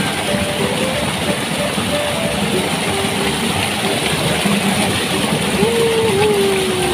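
Water pouring down a small waterfall and splashing into the pool below: a loud, steady rush close up.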